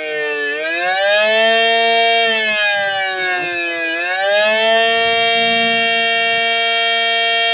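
Siren sounding the attack signal, a slow up-and-down wavering tone: its pitch falls at the start, rises about a second in and holds, dips again around three to four seconds in, then rises and holds high to the end.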